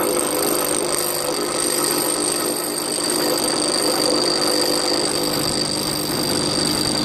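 Bench grinder running steadily while a steel lathe tool blank is ground against its wheel: a steady high whine over the hiss of grinding.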